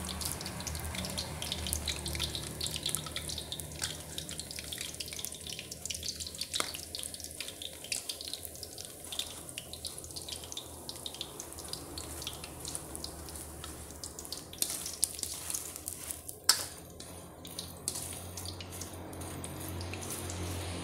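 Snow sausages frying in a little oil in a wok, the oil sizzling with a dense steady crackle. A single sharp knock about sixteen seconds in stands out above the crackle.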